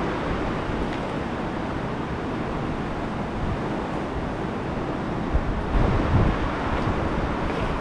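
Steady rushing, wind-like noise, with a few dull low thumps about five and a half to six seconds in.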